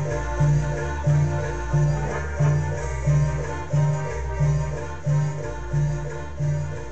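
Latin dance music played loud through a sonidero sound system, with a heavy bass note beating about one and a half times a second under the instruments.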